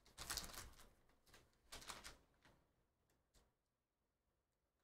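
Faint crinkling of a plastic card-pack wrapper being peeled open, in two short spells within the first two seconds, then near silence.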